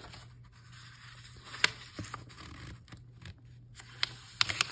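Paper journal pages being handled and set down on a work surface: soft rustling and scraping with a few sharp taps, one a little over a second and a half in and a cluster near the end.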